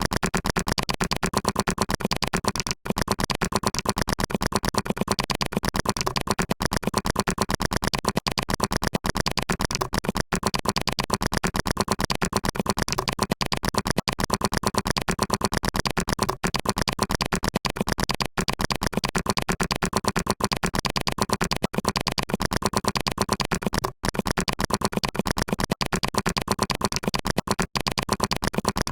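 Computer keyboard being typed on very fast: a continuous rapid stream of key clicks, many a second, broken by a few short pauses.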